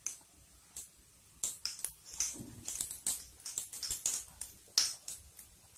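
Hot oil crackling in a steel kadhai as besan-battered potato vadas deep-fry, with scattered sharp pops at irregular intervals.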